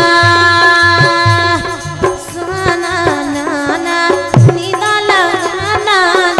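Woman singing a Hindi folk song into a microphone, with harmonium and drum accompaniment; she holds long notes and ornaments them with quick turns of pitch, over a steady drumbeat.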